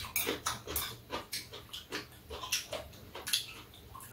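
Two people slurping and chewing rice noodles with chopsticks: short, irregular wet mouth noises, a couple or so a second.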